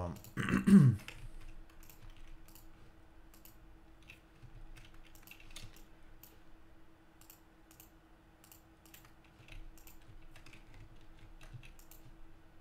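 Light, irregular clicks and taps of a computer keyboard and mouse, over a faint steady hum. A brief vocal sound in the first second is the loudest thing.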